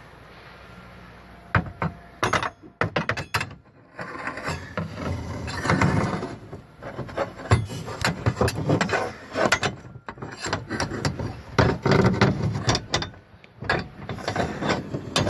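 Steel paintless-dent-repair rod being worked up inside an aluminum Tesla Model S trunk lid, scraping and knocking against the inner panel in irregular clicks and rattles as it is fed into position under the dent.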